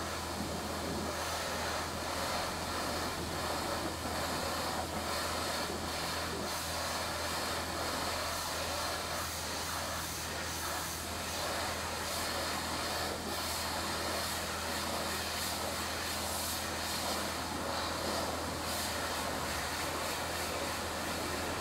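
Steady outdoor background noise: an even hiss over a constant low hum, with no distinct events.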